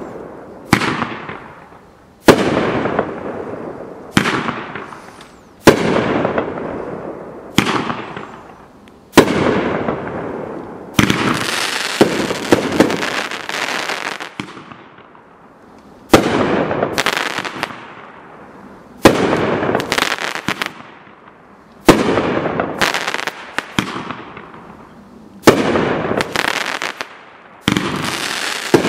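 A 500-gram consumer fireworks cake firing shot by shot, a sharp bang every two seconds or so, each followed by a long crackling fizz as the shells burst into crackling stars.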